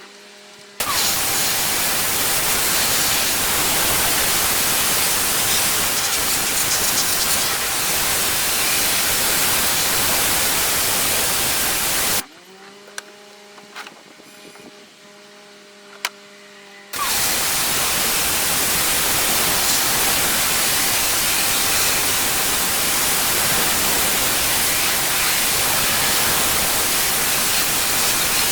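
Pressure washer spraying, a loud steady hiss of the water jet. About twelve seconds in it stops abruptly for around five seconds, leaving only a quieter steady machine hum, then starts again.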